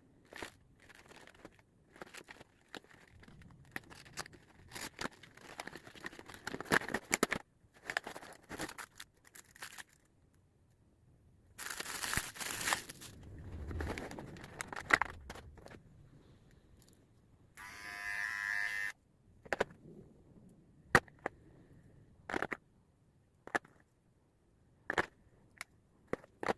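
Packaging of a hair trimmer set being opened and handled: crinkling and tearing of plastic and cardboard, with scattered clicks and knocks of parts being taken out and set down. About two-thirds of the way through there is one buzz of about a second.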